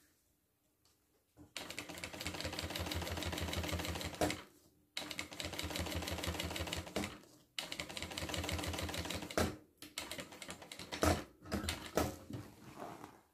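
Industrial sewing machine stitching a topstitched seam, starting about a second and a half in and running in three bursts of a few seconds each with short pauses between. Near the end come a few shorter bursts and clicks as the stitching stops.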